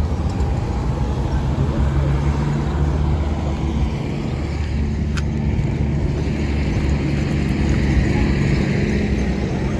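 Steady low hum of a vehicle engine running, with road traffic. A rushing noise swells and fades in the second half, and there is a single click about five seconds in.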